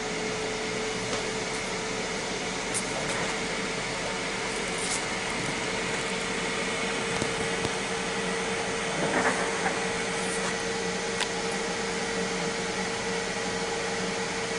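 Ninja Foodi running on air crisp at 400°F: its fan gives a steady, even whir with a constant hum tone through it.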